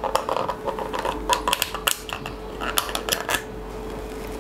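Snap-on lid of a thin plastic takeaway food container being pried off by hand: a run of irregular sharp plastic clicks and crackles that stops about three and a half seconds in.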